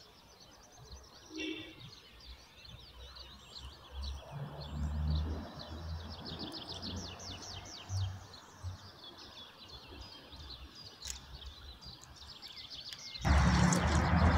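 Hand squishing and kneading a raw minced-meat, rice and herb filling in an enamel bowl, with birds chirping in rapid trills throughout. About thirteen seconds in, the mixing sound becomes much louder and closer.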